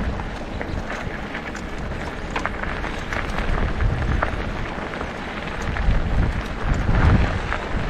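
Wind buffeting the microphone and bicycle tyres rolling over a rough dirt track, a steady rushing rumble with scattered crackles and clicks. The rumble swells near the end.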